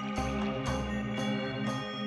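Background music: sustained organ-like chords over a steady beat of about two pulses a second, with a deep bass note early on.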